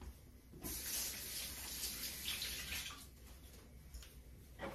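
Water running from a faucet as a steady hiss that starts about half a second in and eases off about three seconds in.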